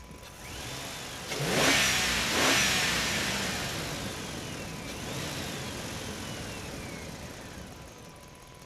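Cartoon vehicle sound effect: an engine revving up with a loud whoosh about a second and a half in, alongside whistle-like tones that rise and then slide down in pitch, twice.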